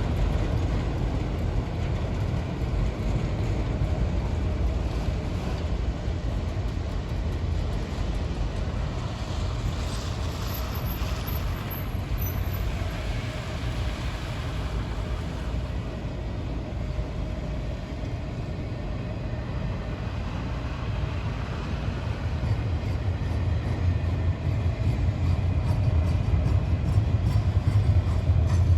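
Train rolling by, a steady low rumble of wheels on rail that grows louder near the end.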